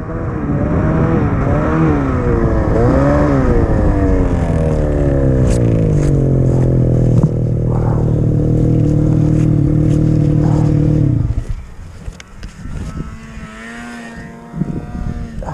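Snowmobile engine revving in a few quick blips, then held at high revs with the pitch sagging as the sled sits buried nose-deep in powder snow. The engine drops away abruptly about eleven seconds in.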